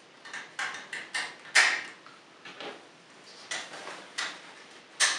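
Hard plastic toy parts clicking and snapping as drill and turret pieces are fitted onto a DX Tyramigo robot toy's head by hand: an irregular string of sharp clicks, the loudest about a second and a half in.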